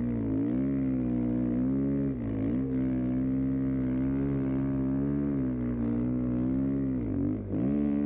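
Snow bike's dirt-bike engine running under throttle through deep powder, its pitch dipping briefly three times as it eases off and then climbing back up.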